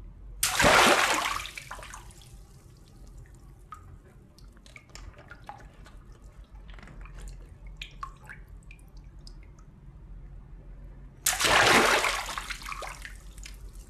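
Two water balloons cut open with scissors, each bursting with a sudden pop and a gush of water splashing onto a tiled floor, about half a second in and again near the end. In between, scattered drips and small splashes.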